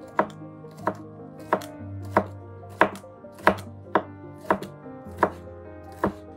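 A chef's knife chopping garlic cloves on a wooden cutting board: sharp, even knocks of the blade on the board, about one every two-thirds of a second.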